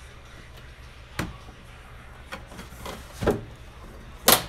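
Plastic back cover of an LED TV being handled for separation, giving a few sharp knocks and clicks, the loudest near the end.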